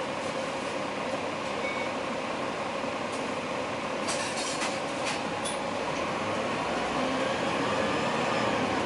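Dennis Dragon 9.9 m double-decker bus engine and drivetrain running under way, heard from inside the passenger cabin: a steady mechanical drone with a steady whine. A few sharp rattles come about four to five seconds in, and it gets a little louder near the end.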